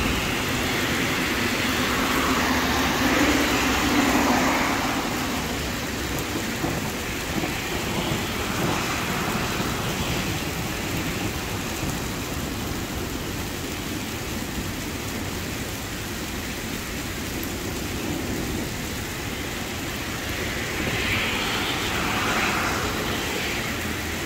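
Heavy rain pouring steadily in a storm, swelling louder a few seconds in and again near the end.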